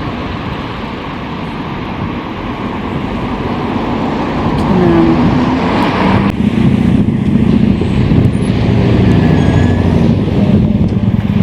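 Road traffic noise, with a motor vehicle's engine growing louder about halfway through as it comes close and stays near.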